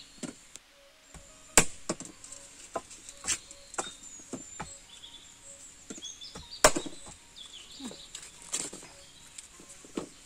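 Irregular sharp chops and knocks as a machete blade strikes a hard, dried round husk held on an earthen floor, mixed with the dull knocks of a wooden pestle in a wooden mortar; the two loudest chops come about five seconds apart. Birds chirp faintly throughout.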